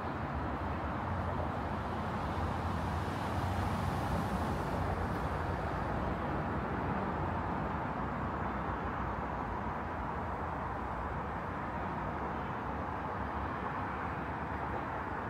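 Steady outdoor street ambience with traffic noise, briefly louder and brighter about two to five seconds in.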